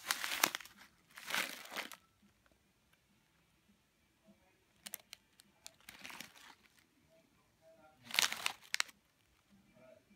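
Plastic snack bag crinkling as it is handled and turned over in the hand, in four short bursts: two in the first two seconds, a patchier one around five to six seconds in, and one about eight seconds in.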